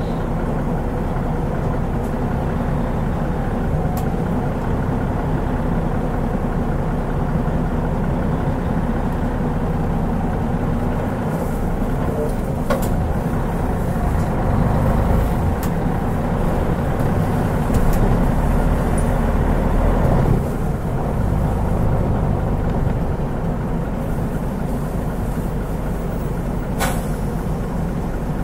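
Mitsubishi Fuso Aero Star city bus heard from inside, its turbocharged 6M70 six-cylinder diesel and drivetrain running steadily under way. A deeper swell from the engine builds about two-thirds of the way through and drops off suddenly, and a few short sharp clicks or hisses stand out, one near the end the loudest.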